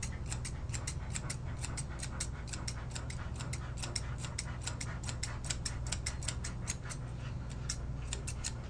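Thinning shears snipping quickly and evenly through an Airedale Terrier's eyebrow hair, about five crisp snips a second, with a short pause about seven seconds in. A steady low hum runs underneath.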